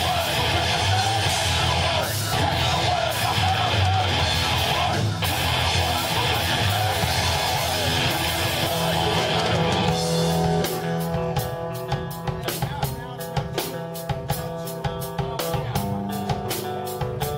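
Rock band playing live on guitars and drum kit. A dense, loud full-band passage runs for about ten seconds, then the song thins to held guitar notes over a steady, sparser drum beat.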